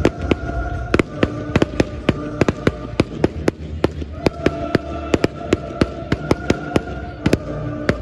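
A fireworks display going off: a rapid run of sharp bangs and cracks, several a second, with music playing steadily underneath.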